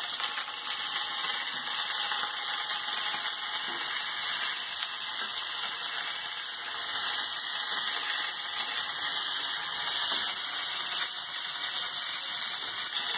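Green capsicum pieces sizzling steadily in hot oil in an aluminium kadhai, being shallow-fried until half-cooked and soft.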